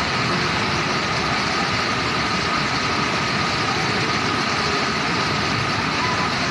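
Fast-flowing floodwater of a swollen river rushing past, a steady, unbroken noise of turbulent water.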